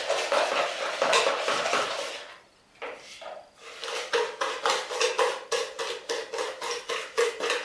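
Metal wire hand whisk beating eggs and sugar in an orange plastic mixing bowl: quick, rhythmic clicking and scraping of the wires against the bowl, with a short pause about two and a half seconds in.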